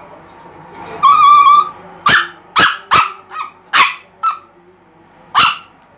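Chihuahua whining briefly about a second in, then barking in short, high yips, seven of them, the last standing alone near the end.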